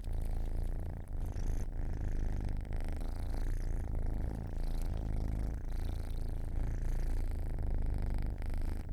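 Domestic cat purring steadily and continuously: a low, rapidly pulsing rumble.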